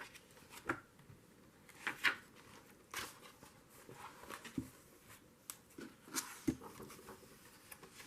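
Pages of a paperback book being handled and turned, with a scattering of soft paper rustles and light taps at irregular moments.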